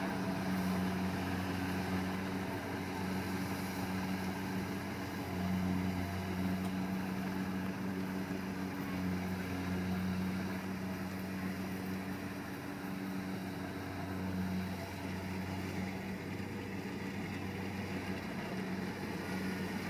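Kubota rice combine harvester running as it cuts through the paddy, its engine droning steadily and swelling and easing slightly in strength.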